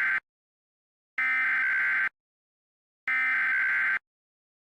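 Emergency Alert System SAME header: buzzy bursts of digital data tones about a second long, each separated by about a second of silence. The tail of one burst is followed by two more, completing the header's three repeats. The header encodes a Shelter in Place Warning (SPW).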